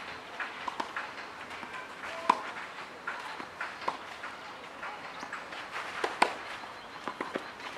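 Tennis ball struck by rackets in a rally, sharp pops with the loudest about two seconds in and again about six seconds in, and fainter knocks and footsteps on the clay court between them.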